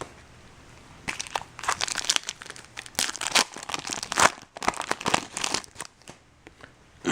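Crinkling and crackling of a foil trading-card pack wrapper being handled and torn open, in irregular short bursts for several seconds.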